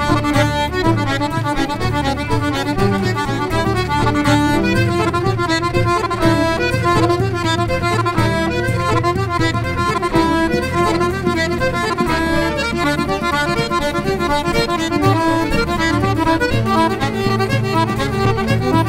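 Irish traditional band playing a tune live, with accordion and fiddle carrying the melody together over a steady backing.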